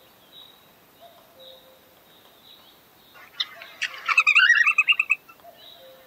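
A songbird sings one quick, loud phrase of rapid chirping notes, jumping between pitches, starting about three seconds in and lasting about two seconds. Faint, short calls from other birds sound throughout.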